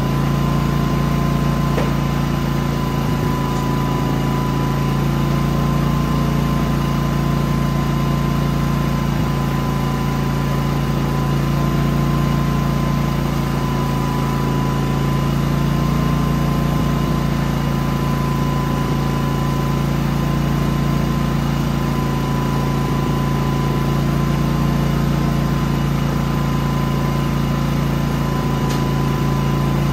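Genmax GM9000iED inverter generator's engine running steadily, with a constant hum and a thin steady tone above it.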